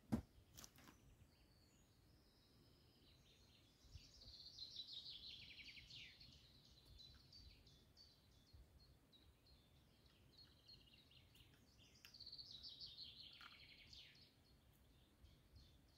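Songbird singing: two descending song phrases of two to three seconds, about four seconds in and again about twelve seconds in, with faint chirps between. A couple of sharp knocks right at the start.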